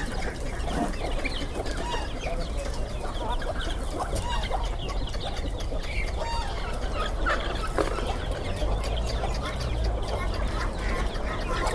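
A flock of country chickens clucking, with many short, scattered calls over a steady low rumble.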